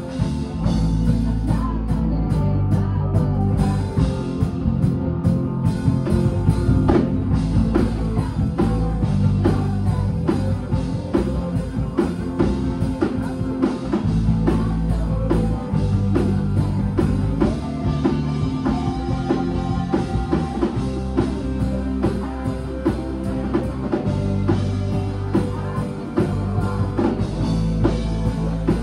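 Rock music with guitar and a drum kit keeping a steady beat over held bass notes.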